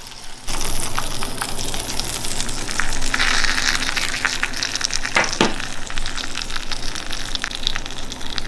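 Food frying in a hot pan: a steady sizzle full of small crackles, starting abruptly about half a second in.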